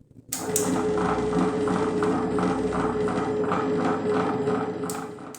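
Butterfly Rapid Plus tabletop wet grinder running, a steady motor hum with a rhythmic clatter about three times a second from the turning drum and stones. It starts sharply just after the beginning and cuts off near the end.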